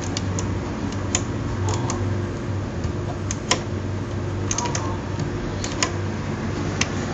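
Irregular light clicks from the side push-buttons of a Soviet Elektronika 7-06M LED wall clock being pressed by hand, over a steady low hum.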